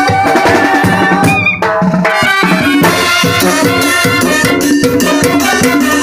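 Live band playing Latin dance music, with a drum kit and cymbals keeping a steady beat; the music breaks off for a moment about a second and a half in, then comes back in.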